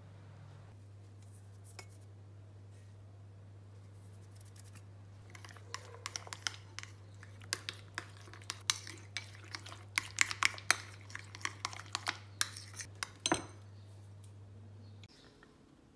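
Metal spoon stirring a thick sauce in a glass bowl, clinking and scraping against the glass in quick irregular taps that start about five seconds in and stop a couple of seconds before the end. A low steady hum runs underneath and cuts off near the end.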